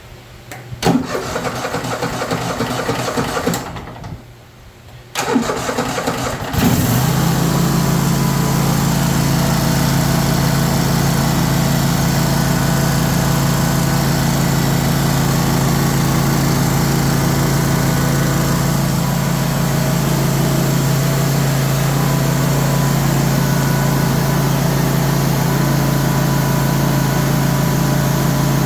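Cub Cadet RZT 54 zero-turn mower engine turned over by its starter for a couple of seconds without starting, then cranked again and caught about six seconds in. After that it runs steadily, just after a drive belt replacement.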